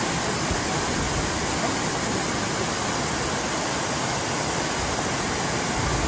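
Steady rushing of water in a mountain stream, an even, unbroken hiss.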